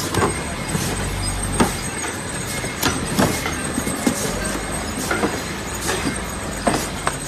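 Automatic carton sealing machine and packaging line running: a steady low mechanical hum with irregular sharp clacks and knocks, roughly one a second.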